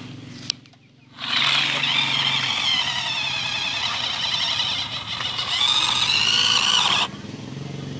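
Toy remote-control car's electric motor whining at full power while the car drives over gravel, a high, wavering whine that starts about a second in and cuts off suddenly near the end. A single click comes just before it.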